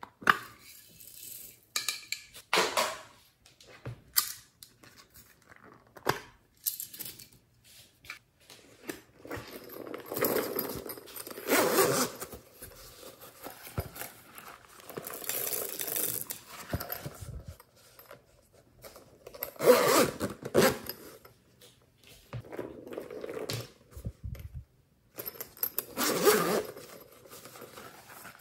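A zipper on a hard-shell pencil case being pulled open in several short runs, with scraping and rubbing of the plastic case as it is handled.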